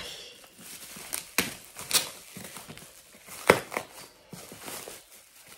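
A package being opened by hand: packaging rustling and crinkling as it is torn, with several sharp snaps, the loudest about three and a half seconds in.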